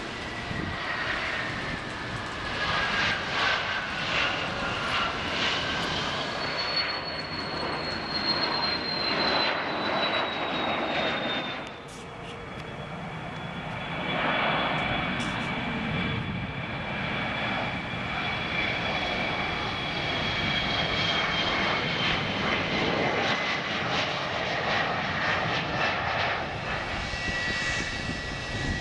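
Jet airliner engines running on the runway: a steady rushing noise with a high whine that slowly falls in pitch as each plane goes by. About twelve seconds in, the sound drops suddenly and a second jet's whine takes over, and near the end a steadier whine comes from a taxiing jet.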